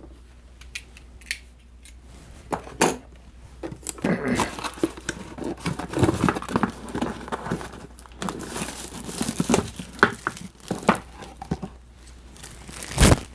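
Packaging crinkling, rustling and tearing as a box is opened and its contents unpacked by hand, with a sharp knock near the end.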